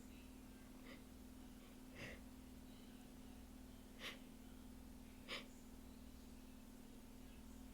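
A person's faint, short breaths and sniffs through the nose, four of them a second or more apart, over a low steady hum: the breathing of someone working up to a sneeze.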